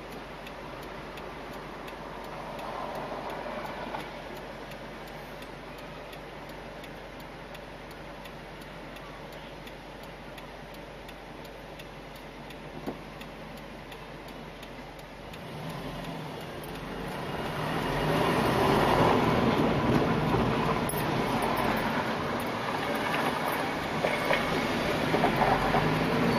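Car interior noise: a quiet, steady idle while the car waits at a light, then about fifteen seconds in the car pulls away and engine and road noise rise and hold, louder.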